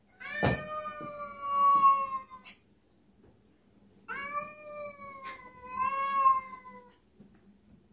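A domestic cat caterwauling at another cat: two long, drawn-out yowls of two to three seconds each, the second wavering in pitch. It is the hostile yowl of a cat confronting a rival. A short knock sounds about half a second in.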